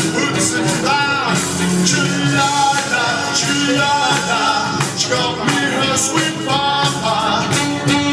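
Upbeat rock-and-roll dance music with a singer over a steady beat.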